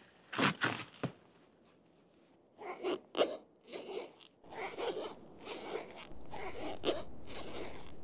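Rustling and scraping of hands and jacket fabric right against a clip-on lavalier microphone, in a string of short bursts. Between the early bursts the background drops out to dead silence, as a microphone's noise reduction does; near the end a faint steady outdoor background stays under the handling noise.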